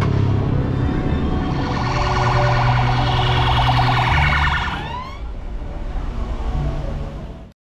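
A siren with a fast warble, loudest in the middle, ending in a few upward sweeps, over background music with sustained low bass notes. All sound cuts off suddenly near the end.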